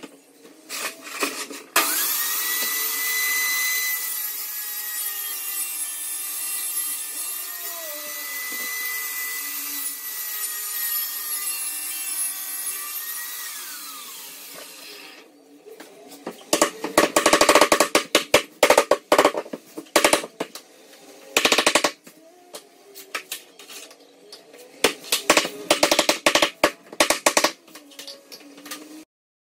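Power saw, likely the jobsite table saw, running steadily for about thirteen seconds, then switched off, its pitch falling as the blade spins down. This is followed by clusters of rapid sharp knocks as vinyl planks are tapped into place with a mallet.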